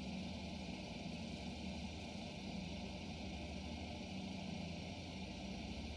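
RatRig V-Core 3.1 3D printer's stepper motors shaking the EVA printhead back and forth during an input-shaper resonance test, a steady low hum as the test steps up from about 11 to 15 Hz.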